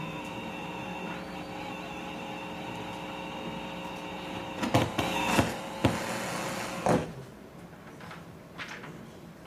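A steady hum with several tones, with a handful of sharp knocks and clicks about five to seven seconds in from handling at the podium. The hum cuts off suddenly right after the last knock, leaving a low background with a couple of faint clicks.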